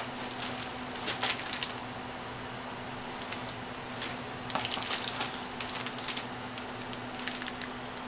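Clear plastic bags of plastic model-kit sprues crinkling and clicking as they are picked up and handled, in a few short bursts, over a steady hum.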